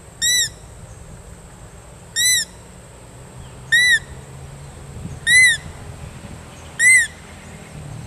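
Hand-held muntjac (barking deer) call blown five times, each a short, high bleat that rises and falls in pitch, about a second and a half apart. It imitates a muntjac fawn's call.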